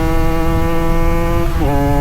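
Two-stroke motorcycle engine running hard with a steady, buzzing note that climbs slowly; about one and a half seconds in the pitch drops sharply and then holds at a lower, steady note.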